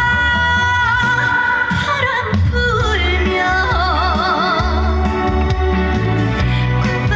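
Female trot singer singing live over a backing track with a steady bass beat. She holds a long note and then sings a note with wide vibrato from about three seconds in.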